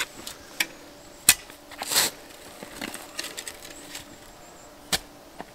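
A narrow spade digging a trench in turf and soil: a handful of sharp crunches as the blade stabs in and levers out clods, the loudest a little over a second in, with a longer gritty scrape about two seconds in and another crunch near the end.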